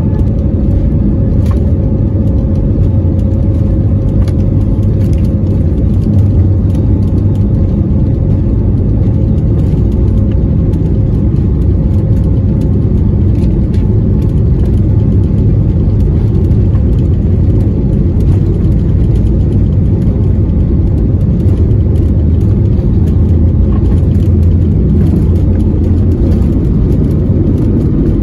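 Jet airliner's turbofan engines at takeoff thrust during the takeoff roll, heard from inside the cabin: a loud, steady deep rumble, with a steady engine tone that fades out about halfway through.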